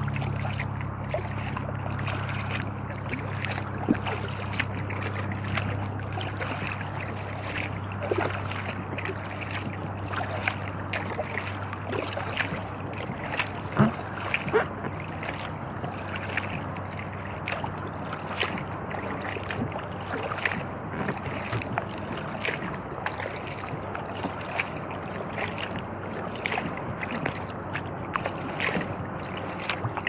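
Kayak paddling: repeated paddle splashes and water drips against an inflatable kayak. Under it, the steady low drone of an old floatplane's piston engine fades away over the first ten seconds or so.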